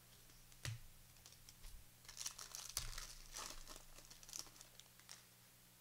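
Faint crinkling and tearing of a plastic trading-card pack wrapper being ripped open and handled. There is a sharp click near the start, then a run of crackles about two to four and a half seconds in.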